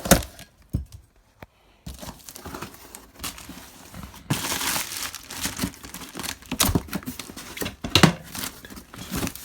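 Plastic packaging crinkling and tearing as parts are pulled out of a box, with sharp clicks and knocks of items being handled. There is a brief lull about a second in.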